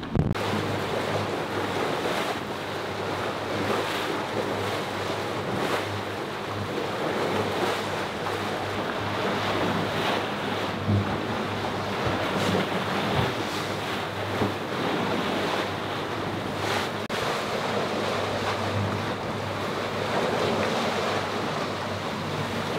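Wind buffeting the microphone and waves rushing and splashing against the hull of a sailing catamaran motoring upwind, over a steady low hum of its engine.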